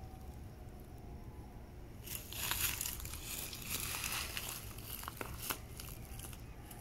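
Crinkling and rustling of a wrapper being handled as cascarilla is unwrapped and applied by hand, coming in uneven bursts, loudest about two to three seconds in, with a couple of sharp clicks near the end.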